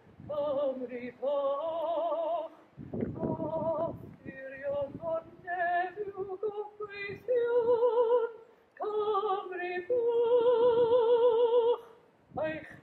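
A woman singing solo and unaccompanied, with a wide vibrato on long held notes. The longest note comes near the end, and there are short pauses for breath between phrases.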